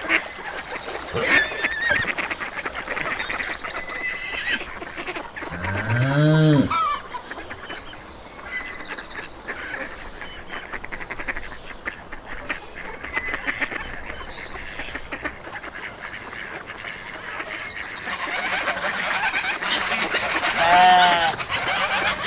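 Farmyard geese honking, with a low, drawn-out call about six seconds in and a run of higher honks near the end, over a bed of small bird chirps.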